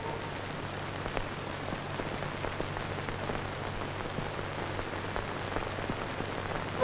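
Steady hiss with faint scattered crackles.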